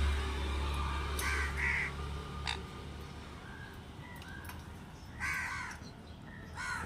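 Sun conures squawking: two harsh calls about a second in, a few faint short chirps in the middle, and two more harsh calls near the end. A low hum fades out over the first few seconds.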